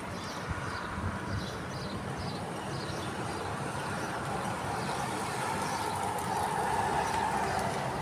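Steady rumble of a passing motor vehicle, swelling from about five seconds in, with faint short high chirps repeating in the first few seconds.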